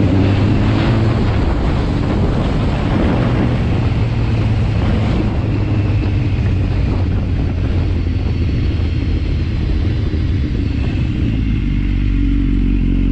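Sport motorcycle engine running steadily while riding, with wind rushing over the helmet microphone. Near the end the wind noise eases as the bike slows.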